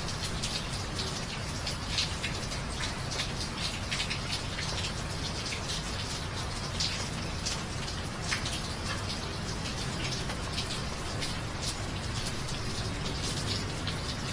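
Steady rain, with many individual drops hitting close by over an even hiss and a low, steady rumble underneath.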